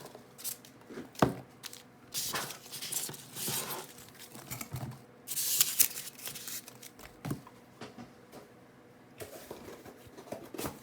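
Packaging from a box of trading cards being handled: paper and plastic rustling, crinkling and tearing, with scattered light clicks and a louder burst of rustling about five seconds in.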